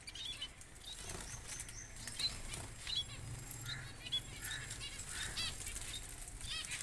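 Caged finches chirping: many short, high, arched calls repeated throughout, with light clicks and a steady low hum underneath.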